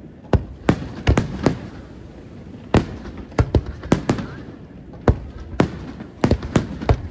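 Aerial firework shells bursting: about fifteen sharp bangs at irregular intervals, some in quick clusters, each trailing off in a short echo, with a brief lull about a second and a half in.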